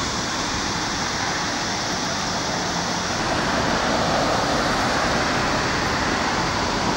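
Steady outdoor street noise on an open city square, a car passing by about halfway through.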